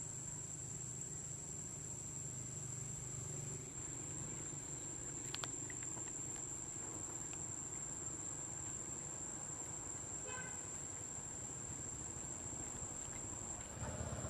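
Steady, high-pitched insect drone over a low background rumble, with a faint click about five seconds in and a brief chirp about ten seconds in; the rumble grows louder near the end.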